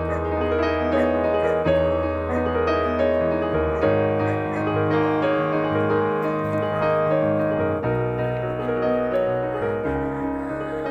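Background instrumental music, keyboard-led, with held chords that change every second or so.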